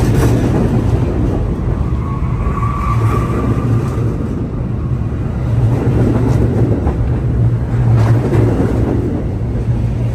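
New York City subway train moving past along the platform: a steady, loud rumble of wheels on rail with a low hum, a thin high whine from about two to four seconds in, and occasional clacks over the rail joints.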